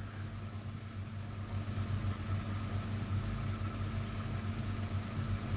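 Steady low hum with a faint even hiss: background room noise picked up by a video-call microphone.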